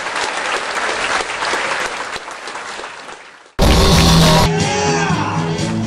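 Comedy club audience applauding, fading away over about three and a half seconds. It cuts suddenly to louder music with steady held notes.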